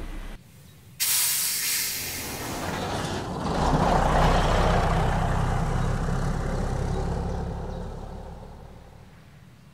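City bus: a sudden loud hiss of compressed air from the air brakes releasing about a second in, then the diesel engine pulling away, swelling and fading as the bus drives off.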